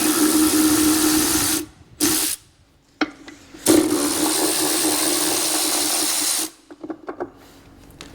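Cordless power drill/driver running in two runs of about two and three seconds, with a short blip between, as the fasteners of the brake servo's original mounting plate are undone.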